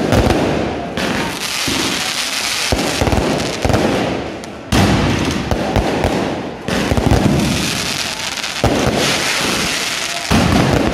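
Massed bottle rockets launching from a beehive rocket fort: a dense, unbroken crackle and hiss of launches and bangs that surges louder in sudden waves, about four times.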